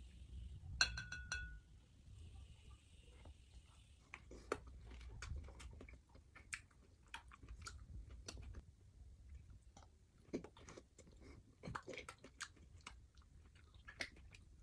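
Close-up chewing and crunching of vegetables, a mukbang eating sound, with many short, sharp crunches and mouth clicks. A brief ringing tone sounds about a second in.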